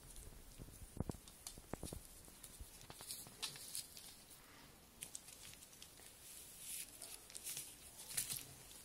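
Faint rustling and scattered small clicks from a litter of miniature schnauzer puppies nursing and shuffling against their mother on a paper whelping pad, with a couple of soft thumps in the first two seconds.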